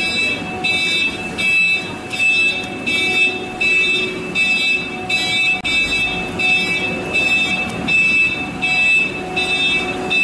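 An electronic beeper sounding over and over in an even rhythm, about four beeps every three seconds, with outdoor background noise underneath.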